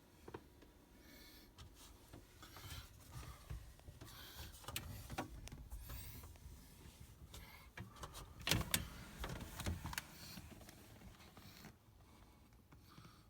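Irregular knocks, clicks and rustles of people moving about and handling things, with a cluster of louder knocks a little past the middle.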